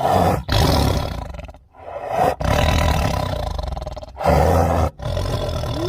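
Tiger roaring again and again in a string of loud roars, each up to a couple of seconds long, with short breaks between them.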